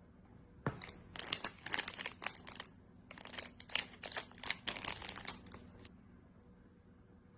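Slime being squeezed and pressed, giving a dense run of crisp crackling pops in two stretches with a brief pause between them.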